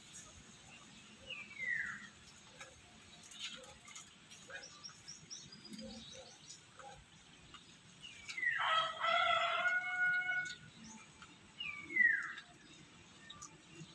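A rooster crows once, for about two seconds, a little past the middle. Twice, near the start and near the end, a short high call falls in pitch.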